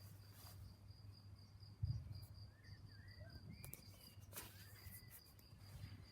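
Near silence: faint background with a steady high-pitched whine and a low hum, a soft thump about two seconds in, and a few faint chirps.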